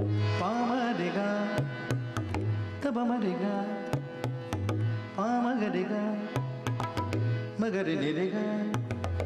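Tabla played in quick strokes alongside a male voice singing winding, ornamented phrases, with a deep resonant bass that comes and goes in spells of about a second.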